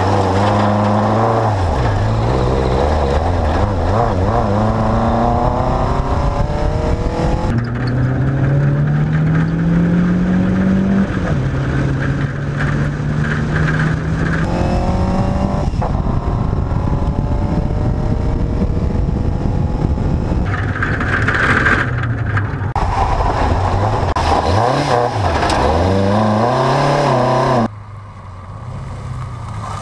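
Škoda 100L rally car with a 1.3-litre four-cylinder Škoda Felicia engine on motorcycle carburettors, revving hard, its pitch climbing and then dropping with each gear change, heard from a camera on the car. About two seconds before the end the sound drops to a more distant engine as the car approaches from down the road.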